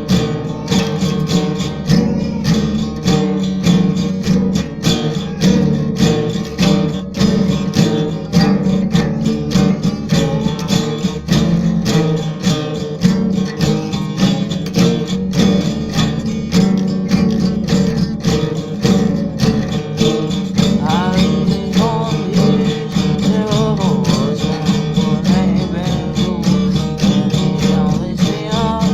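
Country-style music led by a strummed acoustic guitar with a steady beat, and a melodic line gliding up and down in the second half.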